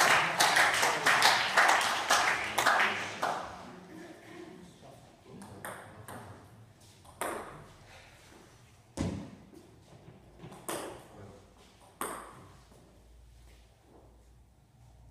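Spectators clapping, with voices, for the first few seconds after a point in a table tennis match, fading out. Then a handful of single sharp knocks of a table tennis ball, one every second or so.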